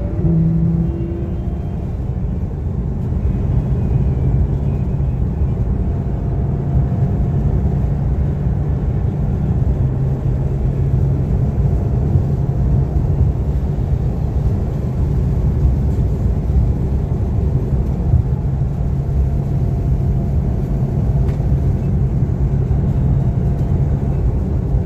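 Porsche GT3 RS's flat-six engine heard from inside the cabin. A pitched engine note ends about a second in, then the car cruises with a steady low engine drone over road rumble.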